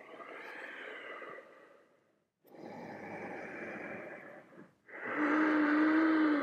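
A person breathing deeply and audibly during yoga, three long breaths about two seconds each. The last breath is a voiced sighing exhale.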